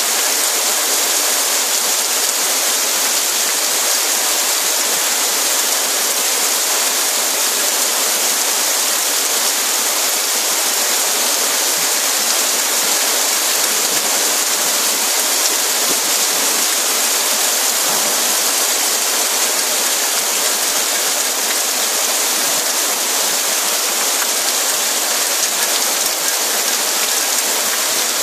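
Heavy rain pouring onto flooded paving, a steady dense hiss of water that does not let up.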